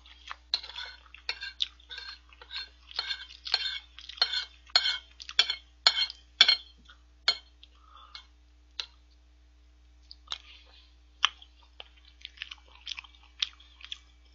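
Metal spoon clinking and scraping against a ceramic plate while scooping curry and rice, mixed with close-up chewing. Busy with quick clinks for the first seven seconds or so, then sparser.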